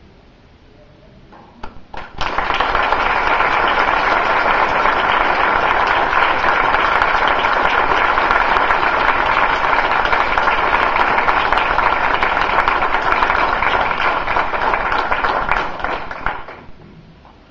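Audience applauding: a few scattered claps, then steady clapping from about two seconds in that thins and dies away near the end.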